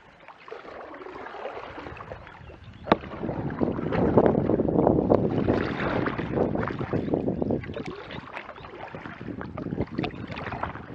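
Kayak paddling: paddle strokes splashing and water washing along the hull, picked up by a camera on the bow deck, louder in the middle. A single sharp knock about three seconds in.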